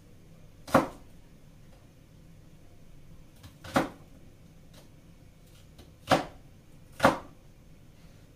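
Kitchen knife cutting onions on a plastic cutting board: four sharp knocks of the blade on the board, spaced unevenly one to three seconds apart, with a few fainter taps between them.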